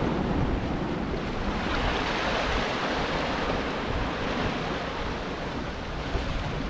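Steady sea surf and wind, with wind rumbling on the microphone.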